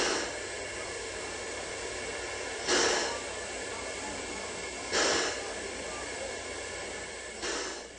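Union Pacific 3985, a 4-6-6-4 Challenger steam locomotive, standing and hissing steam steadily, with three louder puffs of steam about two and a half seconds apart.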